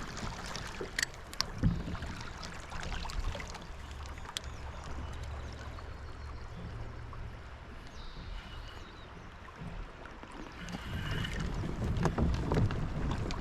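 Kayak on a moving river: a steady low rumble of water and wind on the microphone, with scattered small clicks and knocks.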